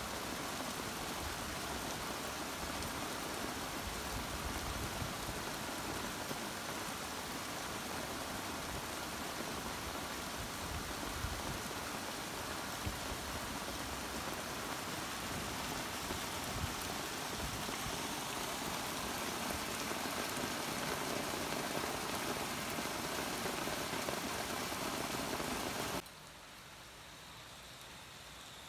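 Heavy rain with runoff water pouring over a stone retaining wall into a concrete drain, a loud, steady rush of splashing. About 26 s in it gives way abruptly to quieter, steady rainfall.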